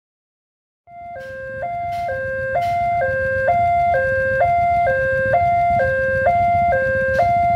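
Railway level-crossing warning siren: an electronic two-tone signal alternating steadily between a higher and a lower note, about one high-low pair a second. It starts about a second in, after silence, over a low rumble, and warns that a train is coming and the barrier is closing.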